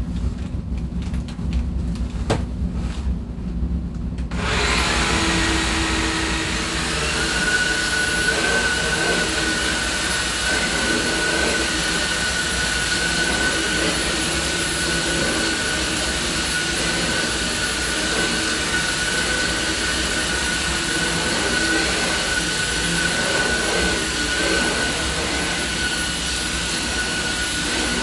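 A few clicks, then about four seconds in a Samsung cordless stick vacuum switches on and runs steadily with a high whine as it is pushed over carpet.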